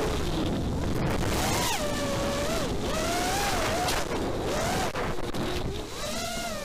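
Racing quadcopter's EMAX RS2205 brushless motors whining, the pitch swooping up and down with the throttle and dipping low near the end, over steady wind rush on the onboard camera's microphone.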